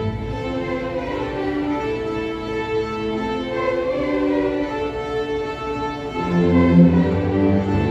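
School string orchestra playing in a gymnasium, violins holding sustained, overlapping notes. About six seconds in, low strings come in with louder deep notes.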